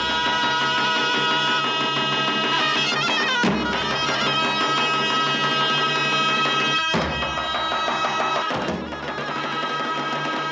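Traditional Macedonian folk music: a reedy wind instrument plays a melody over a steady drone, with a few heavy drum strokes.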